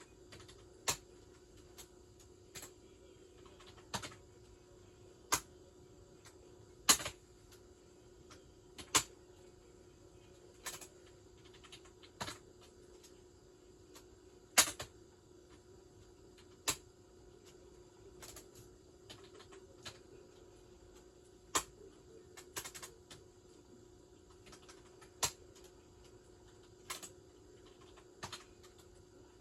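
Sharp single clicks at irregular intervals, about one every one to two seconds, some louder than others, over a steady low hum and hiss.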